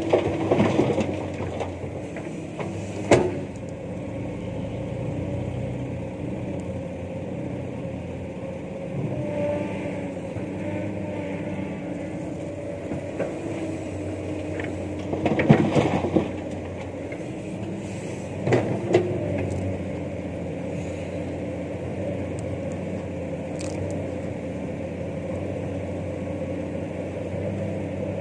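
Komatsu PC200 hydraulic excavator's diesel engine running steadily, with several loud clatters of rock and earth: about a second in, near three seconds, and twice more in the second half.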